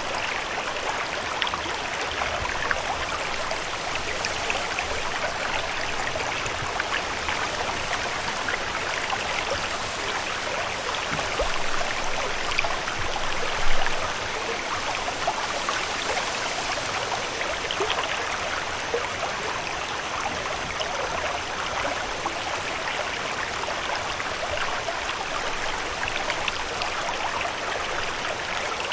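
Steady water ambience, an even rushing and splashing hiss like a stream or lake water, with one brief louder moment about fourteen seconds in.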